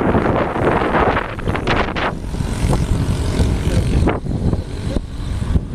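Wind buffeting the microphone of a camera carried on a moving bicycle: a loud, steady rush with low rumble and a few short knocks.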